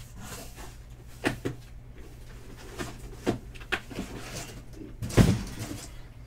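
A few short knocks and clacks of objects being handled and set down, the loudest about five seconds in, over a steady low electrical hum.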